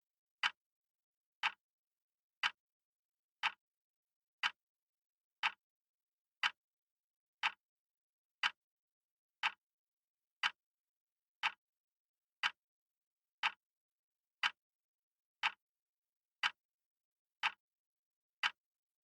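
Clock ticking steadily, one sharp tick each second with silence between.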